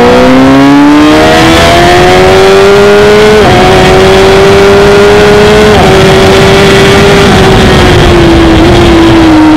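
Onboard sound of a Honda CBR1000RR (SC77) inline-four accelerating hard at full throttle down a straight. The engine pitch climbs, drops with quick upshifts about three and a half and six seconds in, then holds high and sags a little near the end, all under heavy wind rush on the camera.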